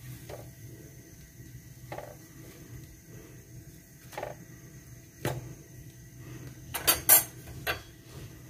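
Scattered light clicks and knocks as toasted burger bun halves are turned over by hand on a hot tawa, then a louder cluster of metal clatters near the end as a metal slotted skimmer is taken up and brought to the pan.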